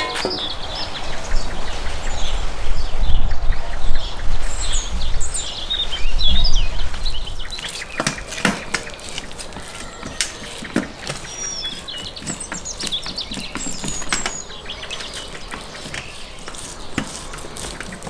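A knife cutting slices off the browned outside of a roasted beef shawarma stack, heard as short separate strokes from about eight seconds in. Birds chirp throughout, and a low rumble dominates the first several seconds.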